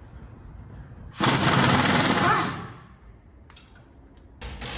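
Impact wrench hammering on a suspension bolt for about a second and a half, then trailing off, as the front leaf-spring hardware is loosened; a quieter mechanical rattle starts near the end.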